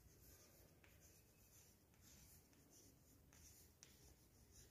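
Faint scratching of chalk being written on a chalkboard, with a few light taps as the chalk touches down for new strokes.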